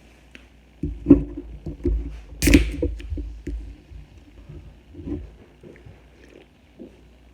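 Close-up eating sounds: bites and chewing on a fried chicken sandwich, in irregular bursts, the loudest a sharp noisy one about two and a half seconds in.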